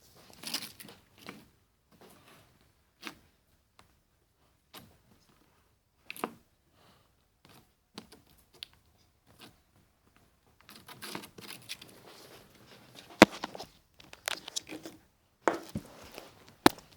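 Hands handling slime-making materials: irregular crinkling and rustling with sharp clicks, sparse at first and busier in the second half, with one loud click about two-thirds of the way through.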